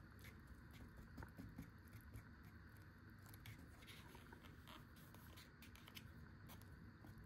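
Near silence: faint room tone with scattered light clicks and taps.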